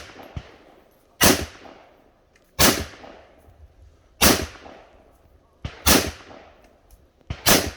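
Rifle shots fired on a range, about five loud shots roughly a second and a half apart, each ending in a short echo, with a few fainter shots between them and two near together near the end.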